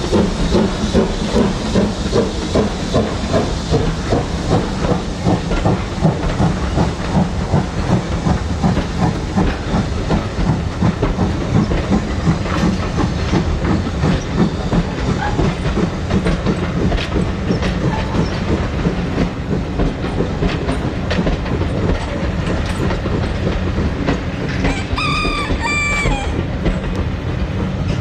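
Steam train running past, with rhythmic beats and wheels clattering on the rails. A short high whistle sounds near the end.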